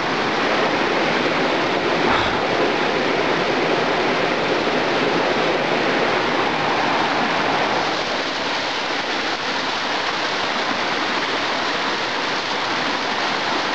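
Steady rush of flowing water, an even hiss without breaks, with a faint bump about two seconds in.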